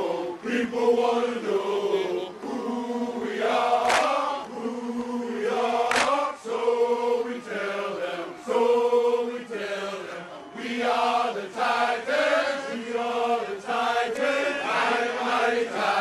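A group of voices chanting in unison in a steady rhythm, holding sustained notes phrase after phrase. Two sharp hits cut through, about four and six seconds in.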